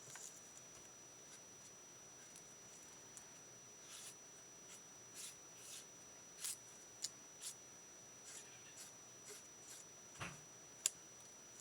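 Faint, short scratching strokes of a pen drawing on cardstock, with one sharp tap near the end.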